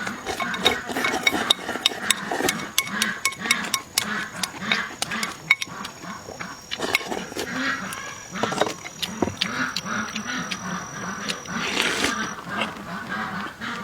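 Close-up eating sounds: chewing and smacking, a few times a second, with many sharp clicks throughout.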